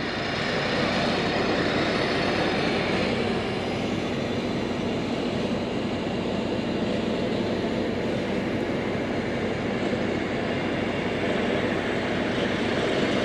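An engine running steadily with an even rushing noise and a faint low hum, no changes in pitch or level.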